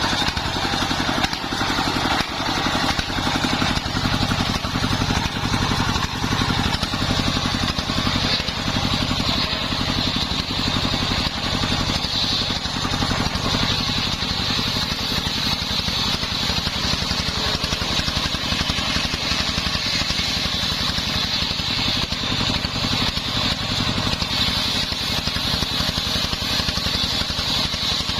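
Homemade circular sawmill running while it saws sengon wood into beams: a steady, rapidly pulsing engine-like drone with a constant high whine from the blade.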